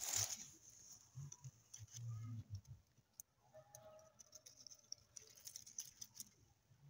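Faint rustling and crackling of dry straw mulch and leaves, with scattered light ticks and soft low thumps of movement through the garden bed.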